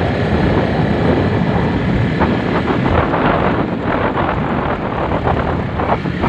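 Honda Sonic 150R motorcycle's single-cylinder four-stroke engine running while being ridden, with wind noise buffeting the microphone.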